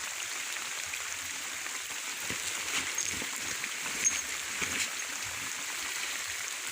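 Steady hiss of rain and running water, with a few small splashes and drips in the middle, the sharpest about four seconds in.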